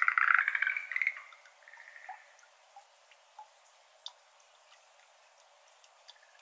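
Schlegel's green tree frogs calling in a rapid pulsed trill that breaks off about a second in, with a fainter call just after. Then only scattered single water drops falling into the shallow water of a flooded iris bed, about one a second.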